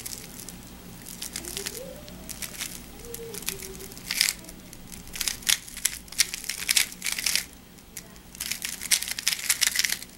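Plastic layers of an Aolong v2 3x3 speedcube clicking and clacking as it is turned fast through a U-perm algorithm (R2 U' S' U2 S U' R2). Sparse clicks at first, then several quick bursts of rapid turning in the second half.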